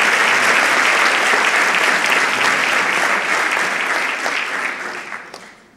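A large audience applauding, the clapping dying away over the last second.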